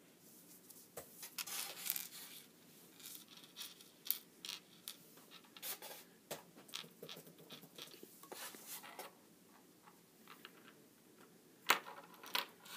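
Small pieces of solidified solder and aluminium foil being handled and picked up off a countertop: scattered light clicks, scrapes and crinkles, with one sharper click near the end.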